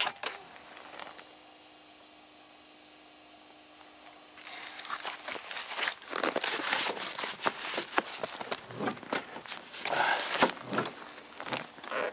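Irregular crunching and rustling in dry, deep-frozen snow, starting about four to five seconds in after a quiet stretch; no engine running.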